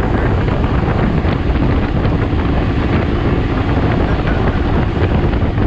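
Boat running under way, wind buffeting the microphone over the steady drone of a 1999 Evinrude Ficht 150 two-stroke outboard, which is running well.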